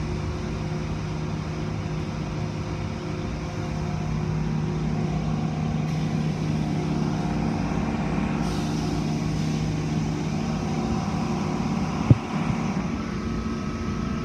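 Automatic tunnel car wash heard from inside the car: the steady hum of the wash machinery with water spray and spinning cloth brushes washing over the car. The spray hiss gets brighter partway through, and there is one sharp knock near the end.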